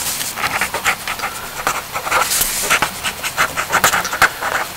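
A pen scratching on paper in quick, irregular strokes as words are handwritten.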